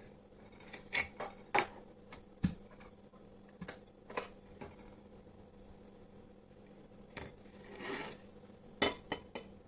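Kitchenware being handled: scattered clinks and knocks of glass and utensils, with a short soft rush about eight seconds in.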